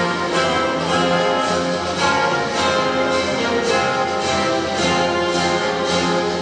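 Orchestral music played back over loudspeakers, with sustained notes moving at an even pace.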